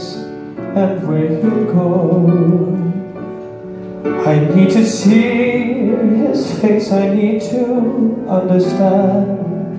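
A man singing a ballad into a handheld microphone over live piano accompaniment.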